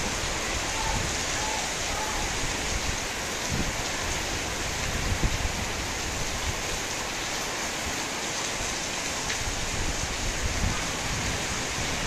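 Heavy, steady rain from a tropical depression, falling on corrugated metal roofs.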